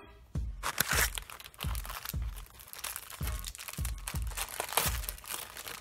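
Clear plastic overwrap on a microwave popcorn bag crinkling as it is handled and pulled open by hand, under quiet background music with a steady beat.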